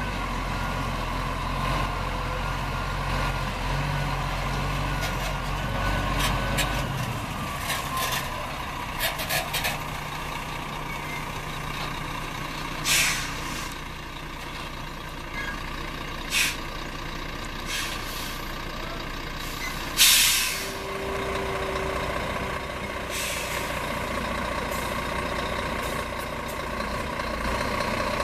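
Scania semi-truck's diesel engine running steadily, its low hum dropping away about seven seconds in as it eases off. Several short air brake hisses follow, the loudest about twenty seconds in as the truck comes onto the weighbridge.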